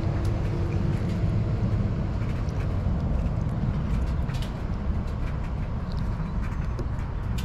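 A steady low rumble, with faint, soft clicks scattered through it as hands tear the gills and guts out of a small mangrove snapper.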